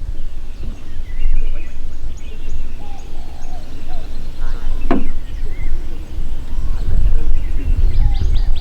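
Several birds chirping and calling in short scattered notes over a steady low rumble, with one brief sharp sound about five seconds in.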